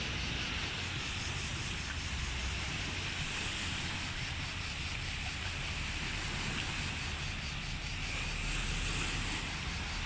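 Steady seaside ambience: wind rumbling on the microphone over the wash of surf, with no distinct event standing out.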